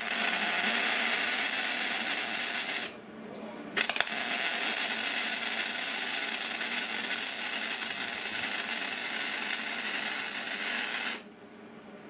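MIG welding arc from an aluminum spool gun, a steady hiss. It breaks off about three seconds in for about a second, restarts with a click, and runs about seven seconds more before cutting off.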